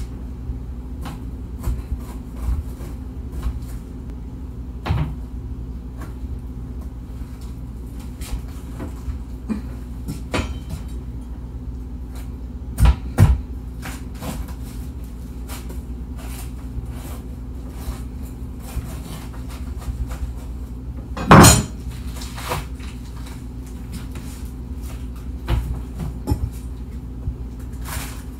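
Kitchen knife cutting into a whole jackfruit on a chopping board: scattered knocks and taps of the blade and the heavy fruit against the board. Two louder knocks come about halfway through and the loudest thud about three-quarters of the way through, over a steady low hum.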